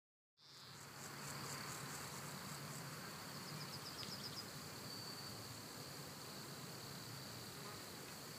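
Faint outdoor ambience fading in about half a second in: a steady high insect drone over a low hiss, with a quick run of chirps a few seconds in.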